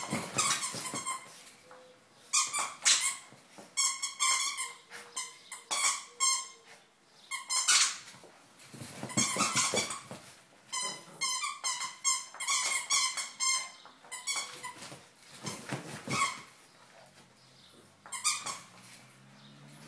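Two small dogs playing rough over a plush toy, with repeated short bursts of high squeaking coming in quick clusters.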